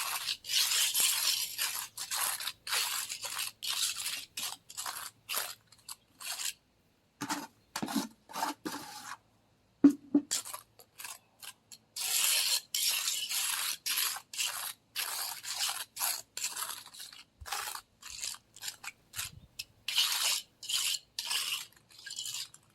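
Steel trowel scraping and spreading wet self-bonding cement resurfacer over a concrete slab in quick repeated strokes, with a couple of short pauses and a single sharp knock about ten seconds in.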